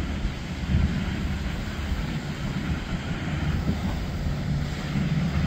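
Steady low engine drone of a flybridge sportfishing boat running at speed, with the rush of water from its wake.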